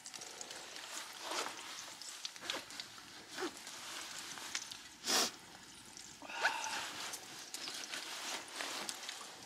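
Campfire crackling with scattered small pops, one sharper snap about five seconds in, over the rustle of a winter jacket as a flask is handled and tucked inside it.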